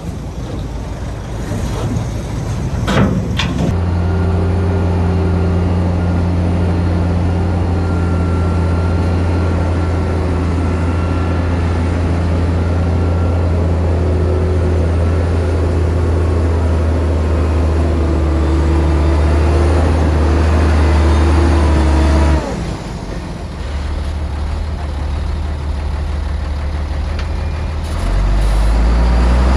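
Heavy machine's diesel engine running steadily at high revs under load. About two-thirds through it drops abruptly to a lower note, and it revs back up near the end. A sharp clank comes about three seconds in.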